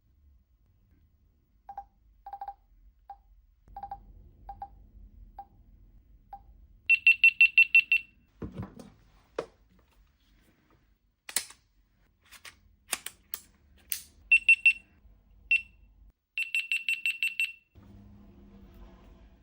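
Electronic beeps from a GoPro camera being switched on and operated. First come short single and double low beeps, then a rapid run of about seven high beeps. Sharp clicks from the buttons follow, then another rapid run of high beeps near the end.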